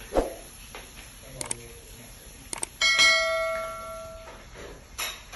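End-screen sound effects: a swoosh, a few sharp clicks, then a bright bell ding about three seconds in that rings on for over a second, and another swoosh near the end.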